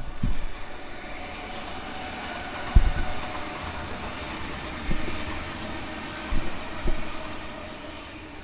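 Sydney Trains electric train running past on the tracks, its noise swelling and then easing off, with several short low thumps along the way.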